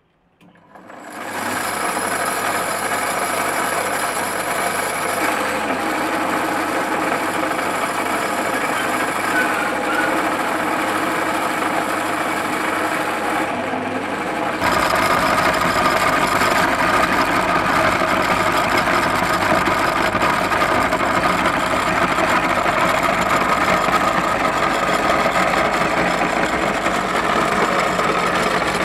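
Motor-driven metal meat grinder running steadily while grinding bread; the even machine hum starts about a second in and gets louder about halfway through.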